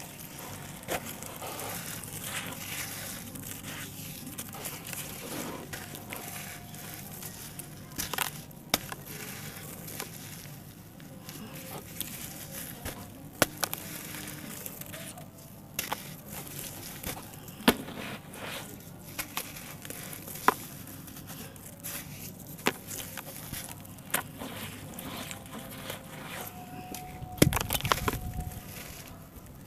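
Wet, gritty red dirt being squeezed and crumbled by hand in muddy water: a steady grainy squelch and crunch, with sharp cracks now and then as lumps break apart. The loudest, densest crumbling comes near the end.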